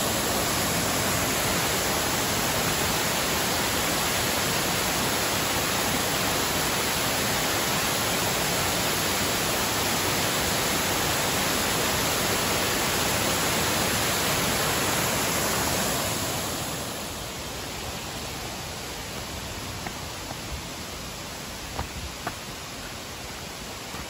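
Steady rushing of falling water from a waterfall and cascading mountain stream, a dense even hiss. It drops noticeably quieter about two-thirds of the way in, and a few faint knocks come near the end.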